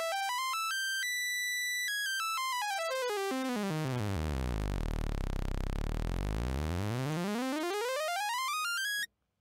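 Arturia Pigments software synthesizer's analog engine sounding a single buzzy tone. A slow LFO sweeps its pitch, quantized to a scale, so it moves in distinct note steps rather than a smooth glide. It climbs to a high note about a second in, steps all the way down to a deep bass note around the middle, climbs back up, and stops abruptly near the end.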